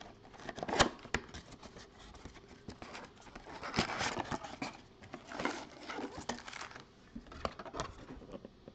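Cardboard trading-card box handled by hands in nitrile gloves: taps and knocks, with a sharp click about a second in, then rustling and scraping as the box flap is pulled open and the card packs slide out.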